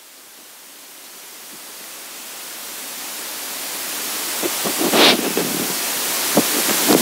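A steady hiss that rises slowly and evenly in level, with a few soft paper rustles from about two-thirds of the way in as the pages of a Bible are leafed through.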